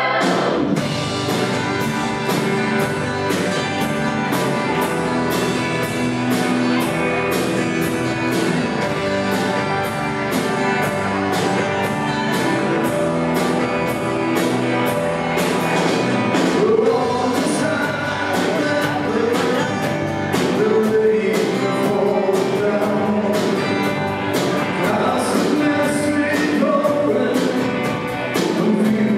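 Live rock band playing: electric and acoustic guitars, keyboard and drums keeping a steady beat, with a man singing lead.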